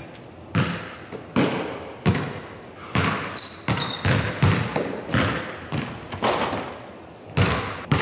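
Basketball dribbled on a hardwood gym floor, bouncing steadily a little faster than once a second, each bounce echoing around the hall. A shoe gives a short high squeak about three and a half seconds in.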